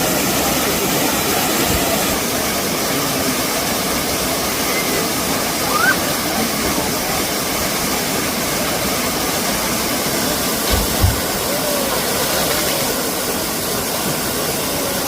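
Waterfall rushing steadily, with two brief low thumps about eleven seconds in.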